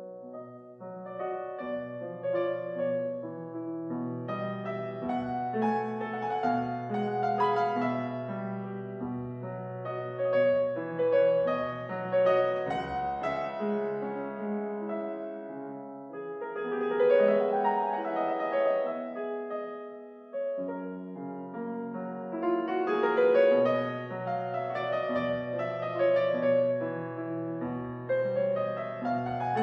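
Background piano music, slow and gentle, with a short pause about 20 seconds in.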